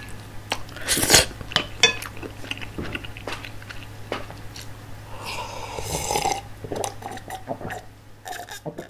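Wooden spoon scraping and tapping on a ceramic plate, many sharp clicks as the last bits of curry sauce are gathered up, with close mouth and chewing sounds. About five seconds in comes a longer breathy rush, and the sounds fade out near the end.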